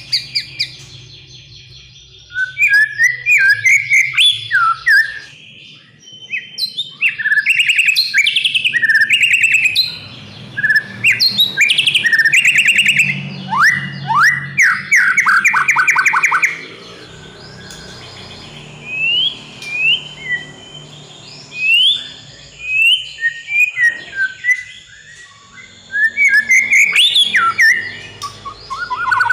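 White-rumped shama (murai batu) singing a loud, varied song. It runs in bursts of quick whistled notes and rapid trills, with short pauses between phrases and rising whistled notes partway through.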